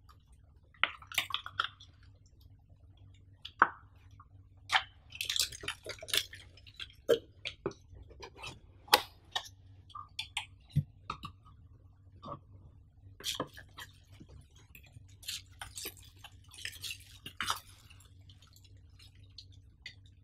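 Close-up handling noise from unpacking a cardboard box: a plastic sleeve and paper crinkling and rustling, with irregular sharp taps and clicks as items are moved and lifted out. A faint steady low hum sits underneath.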